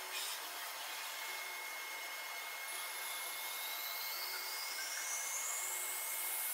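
Metalworking machine processing metal: a steady rasping hiss of tool on metal with a constant high tone, and a whine that rises steadily in pitch from about halfway through.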